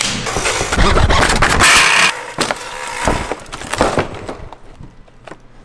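Workshop handling noises: hard plastic parts knocked, clicked and scraped together, with a short burst of hissing noise about one and a half seconds in. The knocks thin out and grow quieter toward the end.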